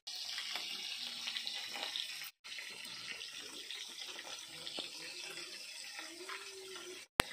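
Fish frying in hot mustard oil in a kadhai, a steady sizzle. The sound drops out briefly about two and a half seconds in, and a single sharp click comes near the end.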